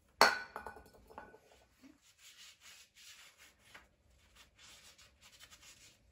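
A sharp clatter of something handled about a quarter second in, then a cloth rubbing back and forth in short, repeated strokes on the Toyota 2ZZ-GE engine's water-pump mounting face, wiping it clean for a new gasket.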